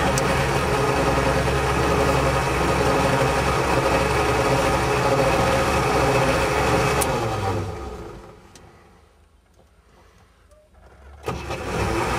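A vehicle's engine runs with a steady, even sound, then dies away about seven and a half seconds in. After a few seconds of near quiet, it starts again suddenly near the end.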